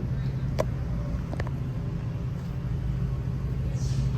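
Steady low background hum of a large store's room tone, with two light clicks about half a second and a second and a half in.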